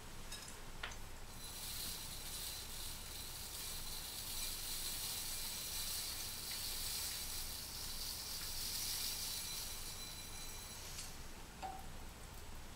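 A small sparkler-like flame burning at the base of the model tree, giving a steady high fizzing hiss that starts about a second and a half in and stops near the end, with a faint click just before it starts.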